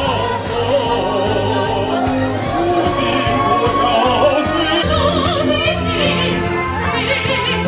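Amplified solo singing with vibrato over a recorded backing track, with a steady bass line underneath.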